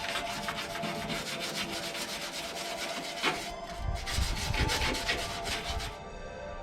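Abrasive rasping on the rusted steel bodywork, a wire brush or abrasive disc stripping paint and rust, in two long passes with a short break about halfway through.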